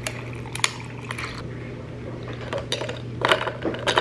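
Liquid poured from a carton into a glass, then the drink stirred with several clinks against the glass near the end.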